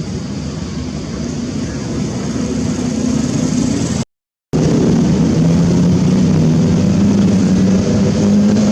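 Steady engine drone from a motor vehicle running close by, a low hum over a noisy rumble. The sound cuts out completely for about half a second about four seconds in.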